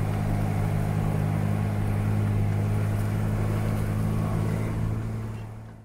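Off-road 4x4's engine running at steady low revs as the vehicle crawls along a dirt track, a constant low drone with road and outside noise over it, fading away near the end.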